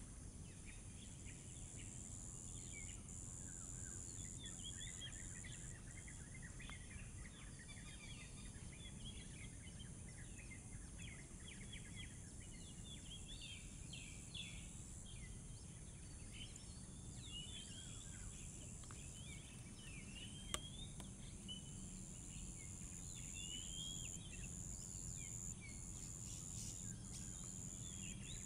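Oriental magpie-robin giving short chirps and whistled song phrases on and off, over a steady high-pitched hum and low background noise. A single sharp click about two-thirds of the way through.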